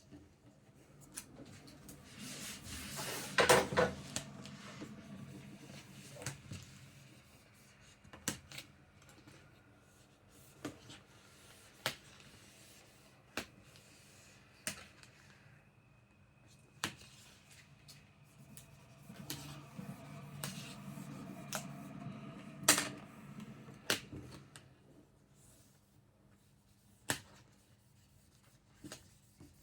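Hands working self-adhesive vinyl wrap film over a drawer front: a squeegee rubbing and scraping across the film in two longer spells, with scattered sharp clicks and taps of the tools and panel in between.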